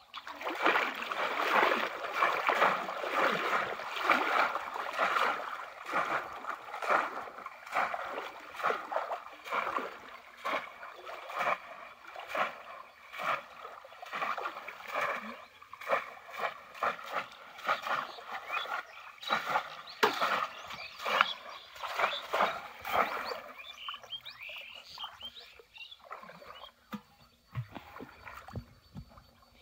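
Shallow pond water splashing and sloshing irregularly as bamboo plunge-basket fish traps are lifted and pushed down into it by people wading, growing sparser over the last few seconds.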